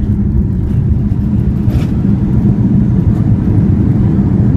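Airbus A330-200 cabin during the landing roll: a loud, steady low rumble of the engines and the wheels running on the runway.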